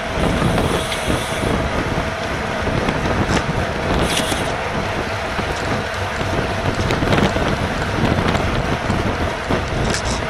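Wind rushing over the microphone of a GoPro on a moving bicycle: a steady, loud rush with a faint steady hum and a few light ticks.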